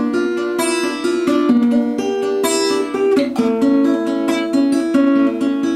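Six-string acoustic guitar fingerpicked in a steady arpeggio, a bass note followed by the higher strings plucked one after another, with no singing.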